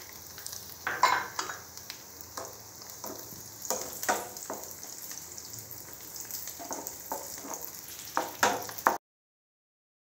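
Cashew nuts, coconut pieces and raisins sizzling in hot ghee in a nonstick frying pan while being fried until brown, with scattered scrapes and clicks of a spoon stirring them. The sound cuts off suddenly near the end.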